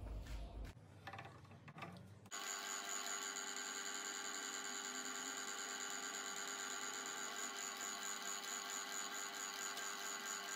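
Bench drill press motor coming on suddenly about two seconds in, then running with a steady whine as the bit drills into a flat metal bar clamped in a vise. Before it comes on there are a few light clicks of handling at the vise.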